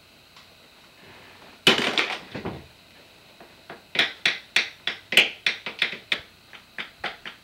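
A loud rustling scrape about two seconds in, then a steady rhythm of sharp taps on a wooden desk, about three to four a second.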